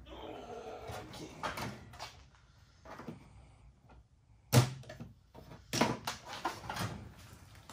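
Tool-cabinet drawer sliding open, then hand tools clanking and rattling as someone rummages through the drawer looking for side cutters. The loudest is one sharp clank about halfway through, followed by a run of smaller clanks.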